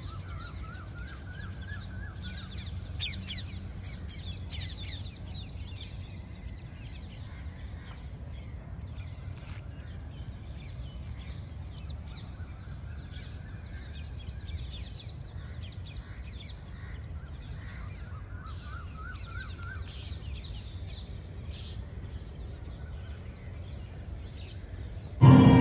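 Many small birds chirping and calling, with a couple of warbling trills, over a steady low rumble. Loud music cuts in abruptly just before the end.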